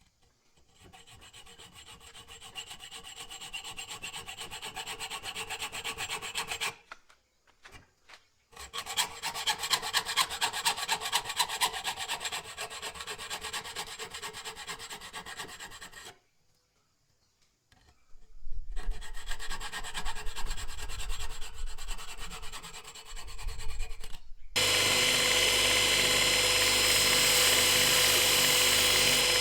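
Fast back-and-forth abrasive strokes by hand, rubbing or filing on a tool, in three spells with short pauses between them. About 25 seconds in, a small power tool starts and runs steadily.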